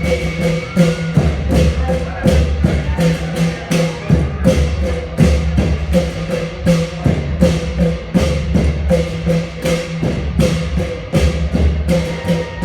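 Thai klong yao long-drum ensemble playing a traditional rhythm: long drums under cymbals struck on a steady beat, about two to three strokes a second, starting at the outset.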